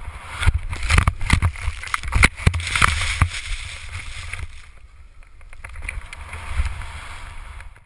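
Wind buffeting a helmet-mounted GoPro camera's microphone as a skier rides through deep powder, with rushing snow and a run of sharp knocks and hits through the first three seconds. It eases off, then swells again before cutting off near the end.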